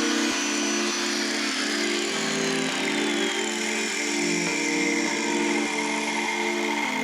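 A power tool running steadily with a whine that slowly falls in pitch, over background music.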